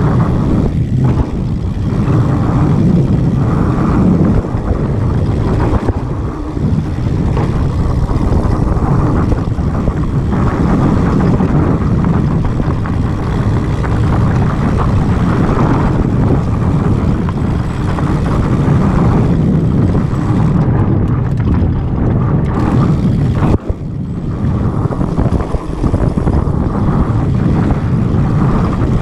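Steady rumble of wind buffeting a bike-mounted action camera's microphone, mixed with knobby mountain bike tyres rolling over packed dirt singletrack. A single short knock comes about two-thirds of the way through, with a brief dip in the noise after it.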